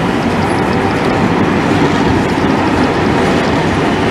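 A train passing close by: a steady, loud noise of wheels running on the rails.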